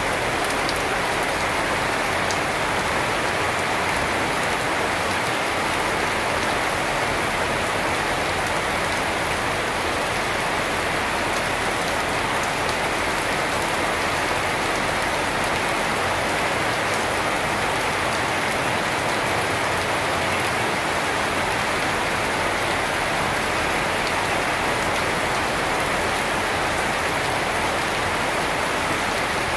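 Steady rain falling on tree leaves and a wet concrete yard, an even hiss that holds without a break.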